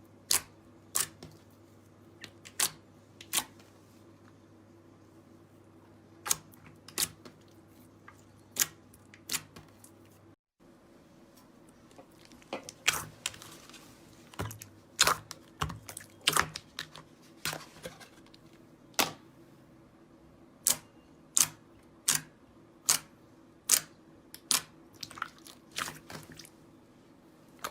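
Slime being pressed and poked, giving sharp popping clicks, scattered at first and coming thicker and faster after a short break about ten seconds in.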